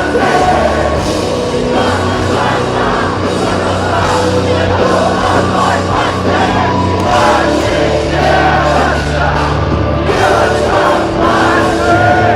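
Heavy rock band playing live, loud and steady, with a sung vocal line and crowd noise mixed in.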